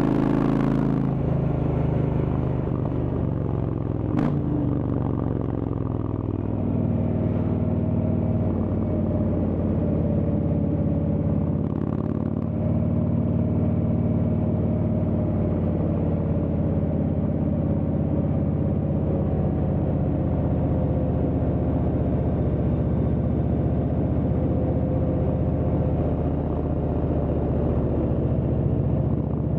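Indian Chieftain's Thunder Stroke V-twin running steadily through a Freedom Performance aftermarket exhaust, heard raw from the bike while riding. There is a single sharp click about four seconds in.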